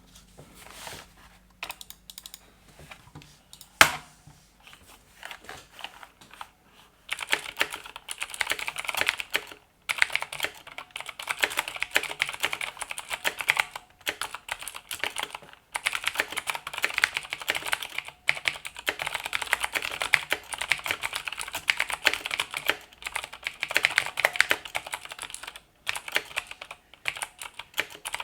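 Typing on a plateless 1989 Chicony KB-5192 keyboard with clicky Cherry MX Pale Blue switches and stock thin keycaps. Scattered single keypresses for the first seven seconds, with one loud sharp click about four seconds in, then fast continuous typing broken by a few brief pauses.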